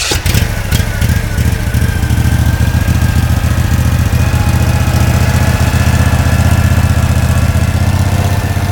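Partner HP40 hydraulic power unit's engine running steadily just after a warm start with the choke off, building up over the first second and then holding an even speed.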